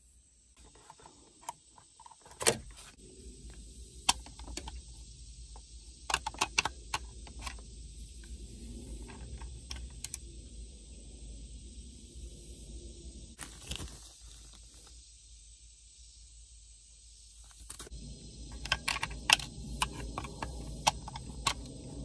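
Scattered plastic clicks, taps and scrapes from hands and a small screwdriver working at the back of a 2003 Honda Element's HVAC control panel while its bulbs are changed. The clicks come in a quick cluster near the end, over a steady low rumble and hiss.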